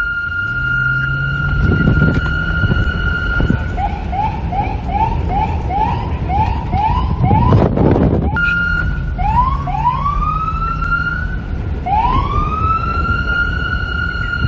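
NYPD police car siren switching modes: a steady high tone, then a fast run of short rising chirps, about three a second, then slower rising wails that climb back into the steady tone. A brief loud rush of noise cuts across it about seven and a half seconds in, and wind noise lies underneath throughout.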